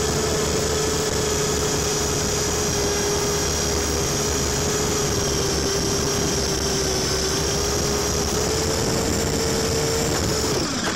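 Dual-rotor RC helicopter's electric motors and rotors running with a steady whine through a liftoff and short flight. Near the end the pitch sinks and the sound cuts off as the rotors spin down.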